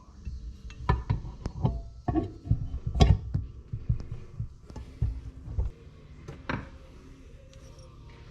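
Metal parts and tools clinking and knocking on a workbench during motorcycle engine assembly: a quick run of sharp knocks and clinks over about six seconds, the loudest about three seconds in, then only a low steady background.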